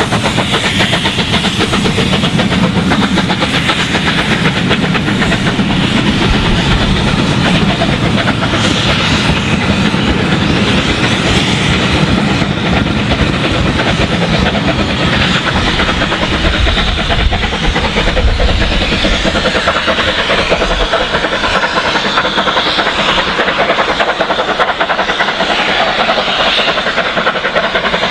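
Steam locomotive 35028 Clan Line, a three-cylinder Bulleid Merchant Navy class Pacific, working away from a station stop with its steam exhaust. Its train of coaches rolls past close by, the wheels running over the rail joints and pointwork. The sound is loud and steady throughout.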